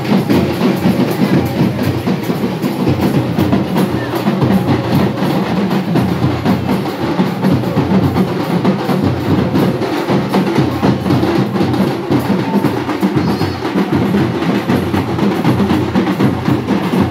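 Loud, continuous festival drumming: a percussion group beating fast, dense strokes without a break.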